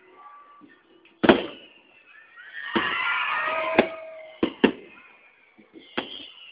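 Fireworks going off: about five sharp bangs, the loudest about a second in. Around the middle comes a second-long burst of hissing, crackling sparks, and thin high whistles slowly fall in pitch.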